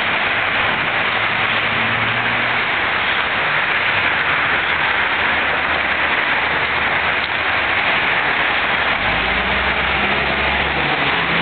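Street traffic on a busy city avenue: a steady, loud hiss, with a vehicle engine's low rumble building for the last couple of seconds.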